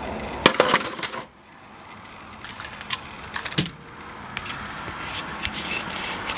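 Handling noise: a quick run of sharp clicks and knocks about half a second in, a second cluster around the middle, and a steady hiss between them.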